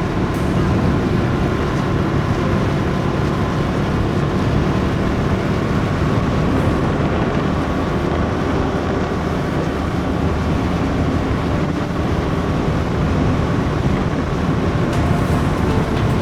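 Motorcycle running steadily on the road, its engine drone mixed with a steady rush of wind and road noise.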